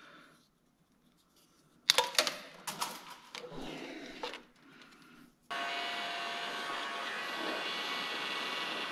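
A few knocks and rattles of parts and tools being handled, then about five and a half seconds in a heat gun switches on and runs steadily with a whining fan, blowing on heat-shrink tubing on a cable end.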